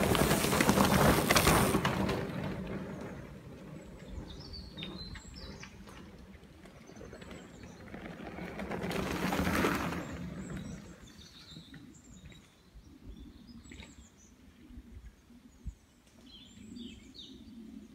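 Mountain bike tyres rolling over a leaf-covered dirt trail as riders pass close by, loudest in the first two seconds and again about nine to ten seconds in. Between and after, woodland birds chirp.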